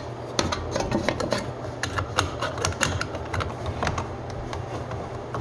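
Irregular small metallic clicks and taps, several a second, as the sheet-metal cover is fitted back onto a dishwasher's electrical junction box and its screw is driven in with a screwdriver.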